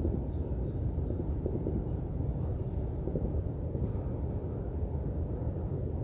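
Steady low rumbling background noise with a faint high-pitched hum above it; no distinct clicks or impacts stand out.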